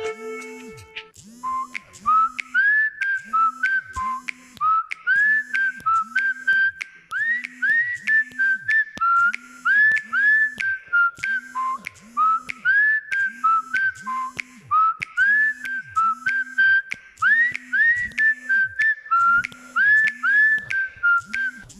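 Huawei P30 Lite ringtone: a melody of short, upward-swooping whistle notes over a steady, evenly repeating low beat.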